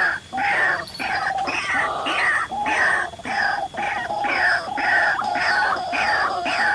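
White-breasted waterhen calling: a long run of harsh, repeated 'ruak-ruak' croaks, about two a second.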